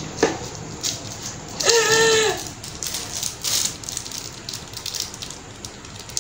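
Plastic packaging crinkling and rustling in the hands: bags of craft beads and a clear plastic packet of wire being handled and opened, with small scattered crackles and clicks.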